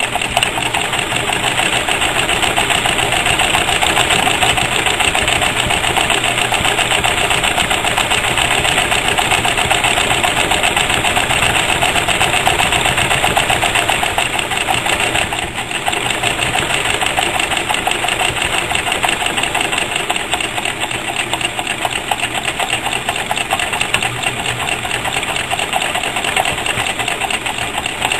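Singer sewing machine running steadily, stitching a panel onto a multitool sheath through thick material, easing off briefly about halfway through.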